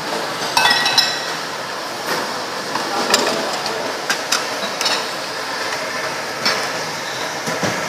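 Ceramic noodle bowls clinking and knocking together as they are handled and set down on a steel counter, a sharp clink every second or so, some ringing briefly, over a steady background din.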